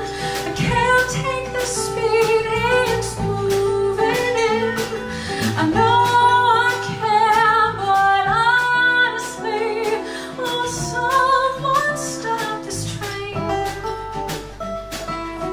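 A woman singing a ballad live with band accompaniment, including guitar, over a steady rhythm.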